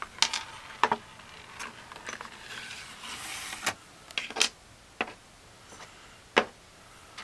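Scattered sharp clicks and light knocks of small marker parts and tools being handled on a work surface, the loudest about six seconds in, with a brief soft hiss around the middle.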